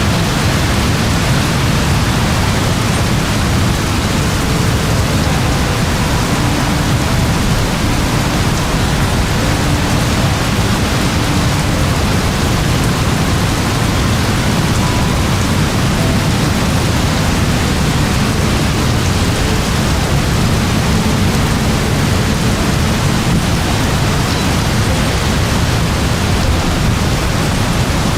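Very heavy rain pouring steadily: a dense, even hiss with a deep low-end weight, unbroken and unchanging.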